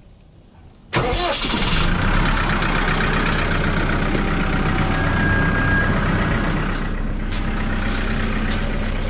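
Bulldozer's diesel engine cranking and catching about a second in, then running steadily.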